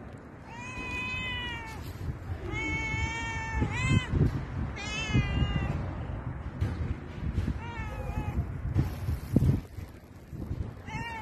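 Grey tabby cat meowing repeatedly: about six separate meows, most about a second long, each rising and then falling slightly in pitch, with a gap of two or three seconds before the last one near the end. Low thumps sound beneath the calls.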